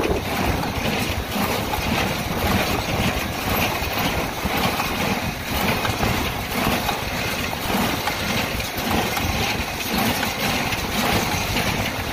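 Tractor engine and Massey Ferguson 124 square baler running steadily in the field while baling, with wind buffeting the microphone.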